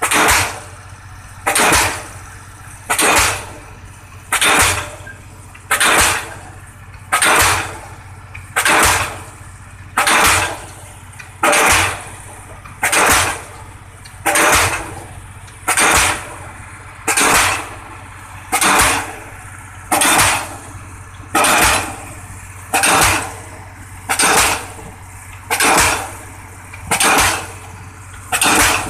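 Pile-driving hammer striking a round concrete pile in a steady rhythm, one heavy blow about every one and a half seconds, over the steady drone of the pile rig's engine.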